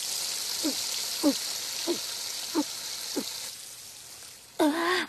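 Water gushing from a sink tap while a girl gulps it down, five quick gulps about every 0.6 s, the spray dying away about three and a half seconds in. A loud panting breath follows near the end.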